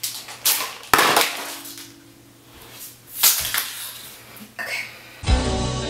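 Paper and cardboard packaging handled and crinkled in a few short rustling bursts. Music starts near the end.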